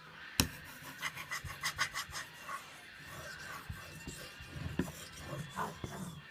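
Steel knife blade scraped in short back-and-forth strokes on a wet King whetstone, working the tip, with a sharp click about half a second in.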